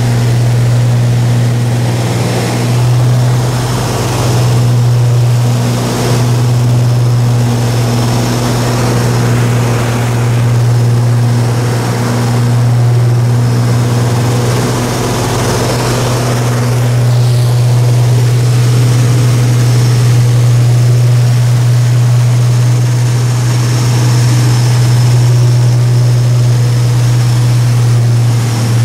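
Steady drone of the de Havilland Mosquito's twin Rolls-Royce Merlin V12 engines and propellers at cruise, heard from inside the aircraft, with a strong low hum and air rushing past.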